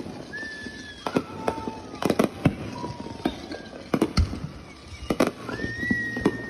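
New Year's fireworks going off in a rapid run of sharp bangs and crackles, with several high whistling tones lasting up to about a second each, the longest near the end.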